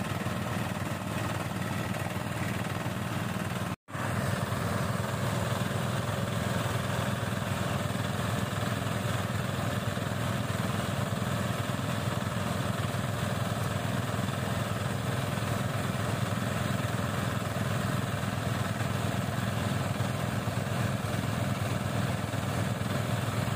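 Small petrol engine driving an outrigger fishing boat, running steadily under way. There is a brief break about four seconds in.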